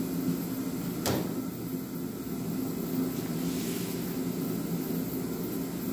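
Forced-air shop heater running with a steady hum. A single sharp knock comes about a second in, and a cardboard box rustles as it is handled a few seconds later.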